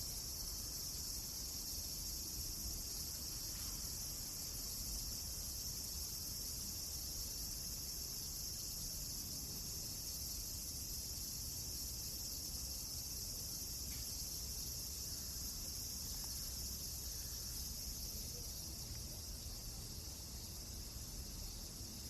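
Steady high-pitched chorus of crickets over a low rumble, with a couple of faint pops.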